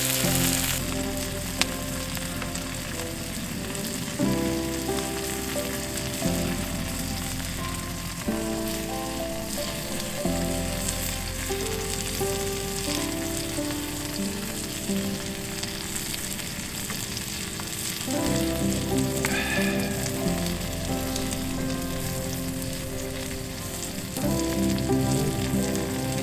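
Steady sizzling of food frying in a pan, under background music with sustained chords that change every two seconds or so.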